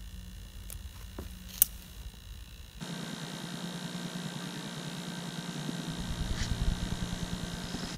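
A utility lighter being worked at a fire pit, with one sharp click about one and a half seconds in. After a sudden change near three seconds, a steady mechanical whir with faint high whines runs on and grows louder from about six seconds in.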